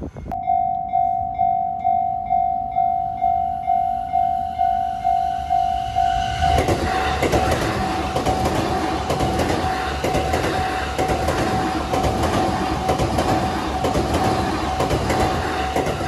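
Japanese railroad crossing's electronic warning bell ringing on one pitch, about two and a half dings a second. About six seconds in, a JR Saikyō Line E233-series electric train passes close by with a loud rumble and rail clatter, and the bell keeps ringing under it.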